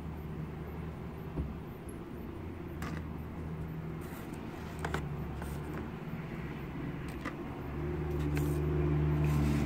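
A motor vehicle's engine running nearby as a steady low rumble that grows louder near the end, with a few faint light clicks.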